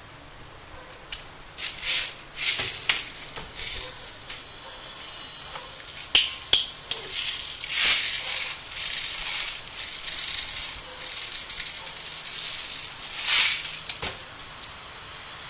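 Airsoft magazine being reloaded: plastic BBs rattling and pouring, with irregular clicks and scrapes of plastic parts.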